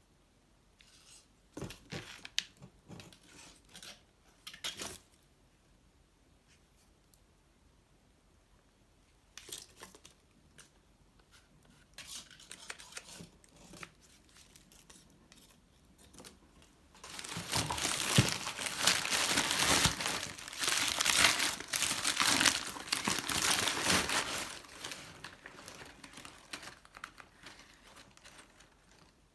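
Packing material crinkling and tearing as it is unwrapped, with scattered handling clicks and knocks in the first half and a dense, loud stretch of crinkling for about eight seconds in the second half.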